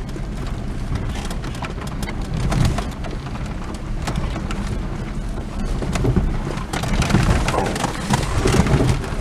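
Truck driving over a bumpy rock-and-gravel dirt road: a steady low rumble with tyres crunching and popping over stones.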